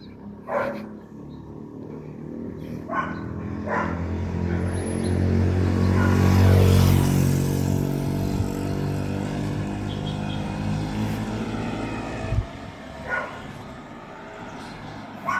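A motor vehicle drives past. Its engine and tyre noise grows, is loudest about six to seven seconds in, then fades away. A few short sharp sounds come before and after it.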